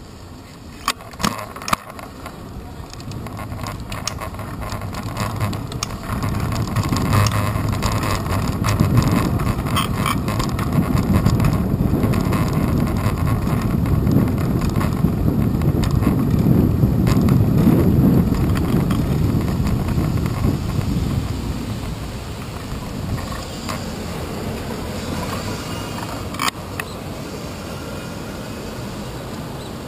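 Bicycle riding noise on a handlebar-mounted GoPro Hero 2: wind buffeting the microphone and a low road rumble. It swells through the middle and eases off after about twenty seconds. Sharp clicks and knocks from bumps are heard near the start and once more near the end.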